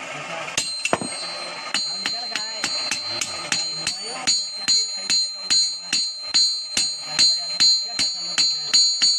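Hand hammer striking an axe blade on an anvil in steady blows about three a second, each blow ringing metallically, the strikes getting louder toward the end.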